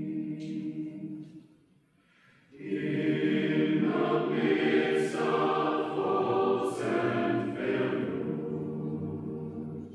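Mixed chamber choir singing a cappella in several parts. A phrase fades out about a second and a half in, there is a short pause, then the full choir comes back in louder and holds on with sharp 's' consonants.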